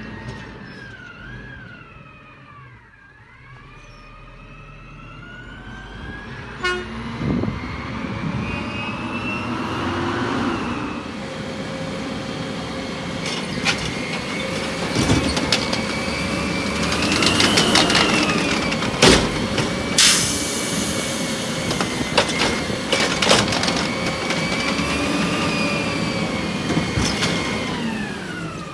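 Garbage truck going by with its diesel engine running, then a long, held horn tone over the engine that wavers up and down in pitch, with a few sharp clicks.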